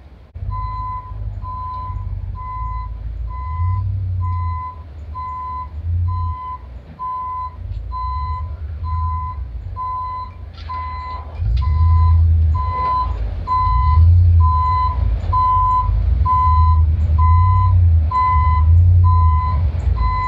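Gravel dump truck backing up: its reversing alarm beeps about once a second over the steady running of its diesel engine. The engine grows louder about halfway through as the truck comes closer.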